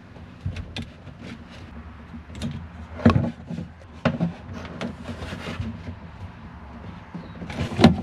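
Hands working fuel hoses onto plastic fuel-line fittings: scattered clicks, taps and rubbing, with a louder knock about three seconds in and another near the end.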